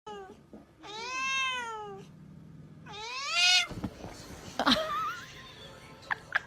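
A cat meowing: two long, drawn-out meows that rise and then fall in pitch, followed by a few shorter, sharper noises.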